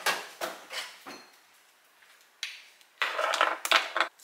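A spoon and seasoning containers clinking and knocking on a stone kitchen benchtop as they are handled and set down: a run of sharp clinks in the first second, a pause, then a busier clatter near the end.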